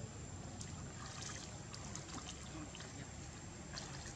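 Shallow water splashing and trickling as a monkey wades and paws at the water, with small irregular splashes.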